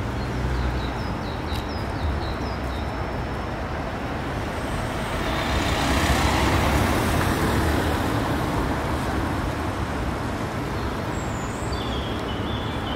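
A van drives past on the street: its engine and tyre noise swells to a peak about six seconds in and then fades, over a steady rumble of traffic.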